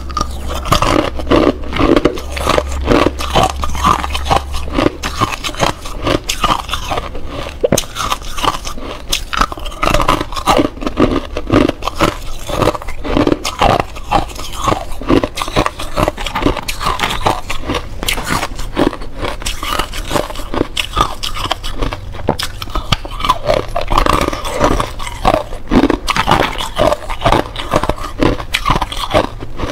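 Close-miked biting and chewing of thin clear ice: a dense, unbroken run of sharp crunches and cracks as the sheets of ice snap between the teeth.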